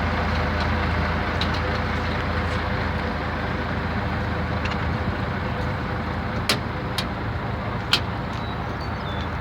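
Heavy diesel engine running steadily at a low, even speed, with three sharp metal clanks in the second half.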